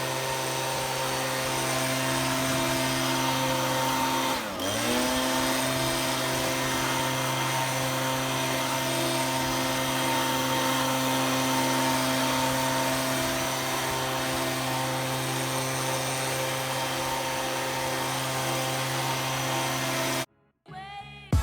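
A powered tool's motor running at a steady pitch. About four and a half seconds in, its pitch dips briefly as it takes a load, then comes back up. It cuts off suddenly near the end.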